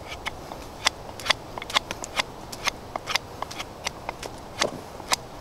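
Scandi-ground Condor Woodlaw bushcraft knife shaving a stick with short, controlled carving strokes: a quick run of crisp scraping clicks, about three or four a second.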